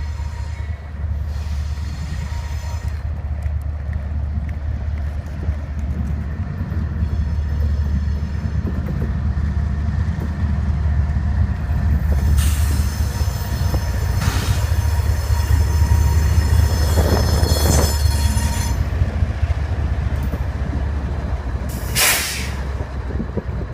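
A train passing with a steady heavy rumble, and high-pitched steel wheel squeal rising over it for several seconds around the middle.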